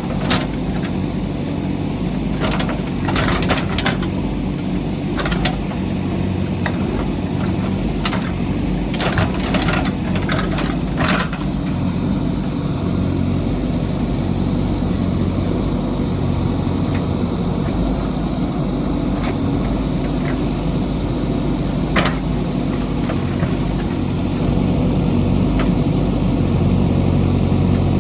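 JCB backhoe loader's diesel engine running steadily under work, with a run of sharp knocks and clatter during the first ten seconds or so and one more sharp knock a little past the middle.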